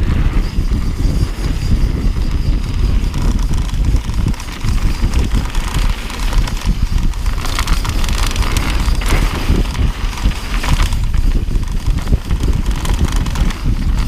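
Mountain bike riding fast down a loose dirt singletrack: wind buffeting the action camera's microphone over the rumble and rattle of the tyres and bike on the rough trail, with a stretch of louder hiss about halfway through.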